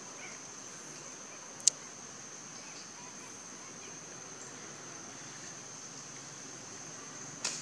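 A steady, high-pitched drone of insects runs throughout. A single sharp click comes about two seconds in, and a smaller one near the end.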